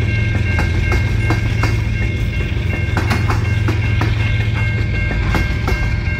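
Covered hopper cars of a freight train rolling past at close range: a steady low rumble of steel wheels on rail with irregular clicks and clunks as the wheels pass over the rail joints, over a steady high-pitched ring.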